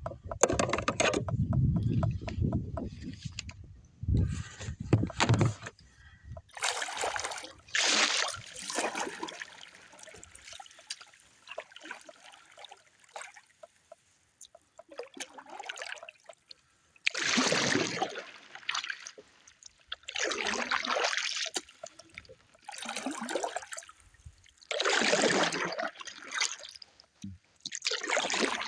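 Kayak paddle strokes dipping and splashing in the water, coming in separate bursts a few seconds apart. Wind buffets the microphone with a low rumble in the first few seconds.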